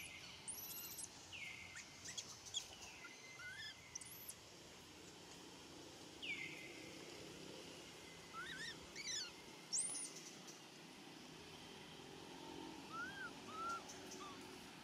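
Faint outdoor background with scattered short, high chirping calls that sweep up and down in pitch, a quick cluster of them about nine seconds in.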